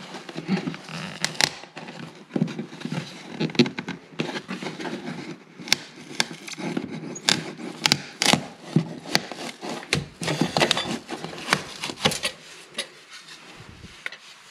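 A piece of wooden trim being pried and broken out by hand: a rapid, irregular run of sharp cracks, knocks and scrapes of wood.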